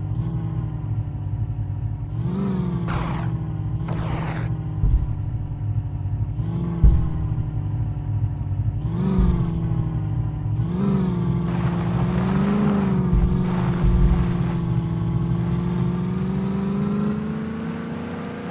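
Car engine running steadily, its pitch rising briefly about half a dozen times as the throttle is pressed, with a few short low thumps in between.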